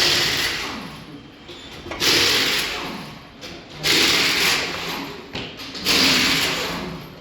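Four short bursts from a pneumatic shop tool or air line, about two seconds apart. Each starts sharply and fades over a second or so.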